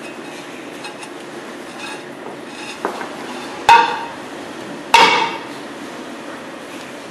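Two sharp metal blows on a rusty rear brake drum, about a second and a half apart, each ringing briefly, with a lighter knock just before; the drum is being struck to free a seized brake.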